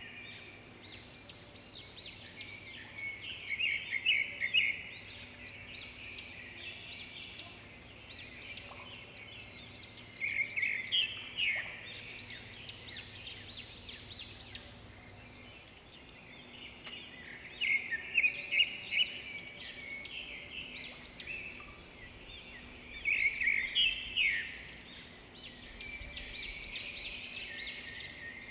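A bird singing in four bouts of rapid, high chirping notes, each about two seconds long and coming every six or seven seconds, over a faint steady hum that fades out about halfway through.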